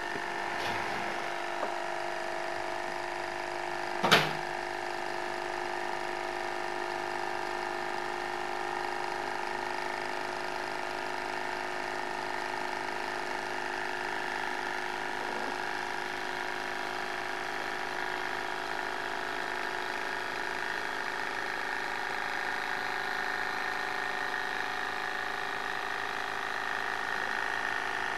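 Small model multi-cylinder Stirling engine running fast and steadily, a whirring mechanical sound of its cranks, rods and pistons at an even speed. A single sharp knock about four seconds in.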